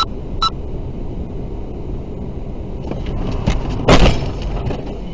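Road noise inside a moving car, broken by two short beeps at the start, then about four seconds in a sudden loud impact as another car strikes the side of the car: a sideswipe collision.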